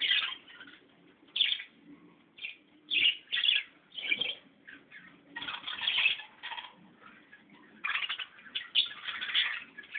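Birds calling in irregular bursts of short chirps, with brief pauses between bursts.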